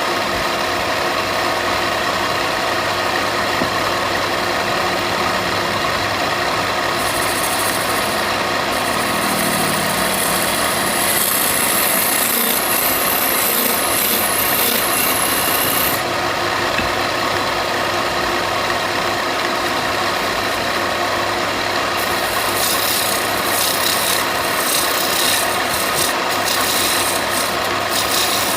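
Electric power tool running steadily while working wood, a constant motor hum with abrasive rubbing against the timber that changes in brightness a few times.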